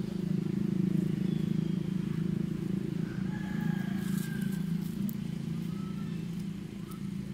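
A steady low hum, with a few faint high chirps and a brief rustle of dry leaves about four seconds in.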